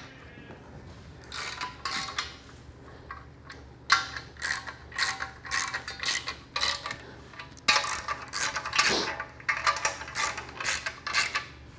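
Hand ratchet wrench clicking in short runs of strokes, tightening bolts by hand on a transmission's drum parking-brake assembly.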